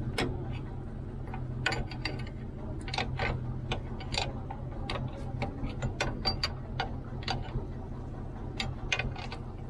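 Ratcheting combination wrench clicking in irregular runs as a nut is worked on a steel bracket, over a steady low hum.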